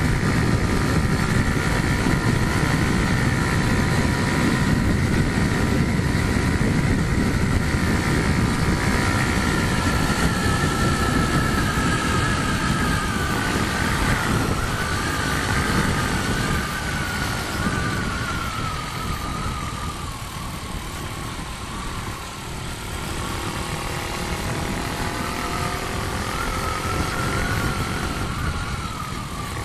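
A motor vehicle engine running under a heavy low rumble. Its whine drifts slowly lower through the middle and rises again near the end.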